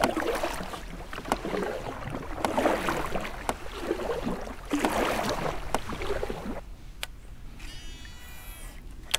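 Water splashing and lapping against the hull of a small boat, irregular and noisy; it dies down about six and a half seconds in.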